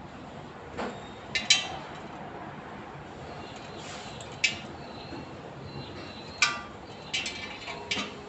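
Sharp metallic clinks with a short ring, about seven at irregular gaps, a pair close together about a second and a half in. This is the strange noise that the owner places inside the tyre on its mag wheel.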